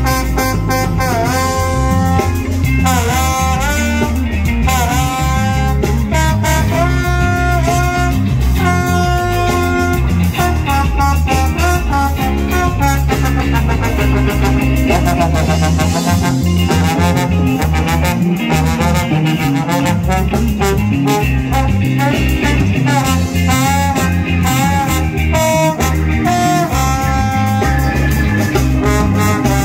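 Live reggae band playing, with a trombone carrying a sliding, held lead melody over electric guitar, drums and a heavy bass line.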